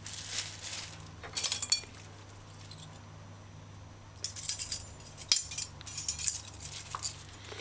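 Ring of metal measuring spoons clinking and tapping as baking soda is scooped from its box and leveled off: a short cluster of clicks about a second and a half in, then a longer run of clinks from about four to seven seconds in.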